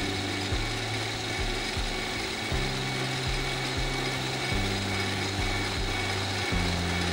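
Metal lathe running while a twist drill bores into spinning bar stock, a steady machine hum with a faint high whine. Under it are low background music notes that change about every two seconds.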